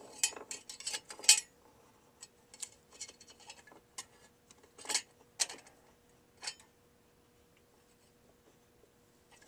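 Light clicks and knocks of a power supply circuit board being handled and set in a small bench vise. The clicks come thick for the first second or so, then scattered single ones, and they stop about six and a half seconds in.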